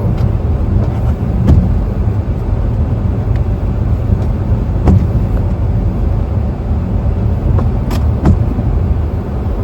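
Low, steady rumble of a car's cabin and road noise, with a few faint clicks.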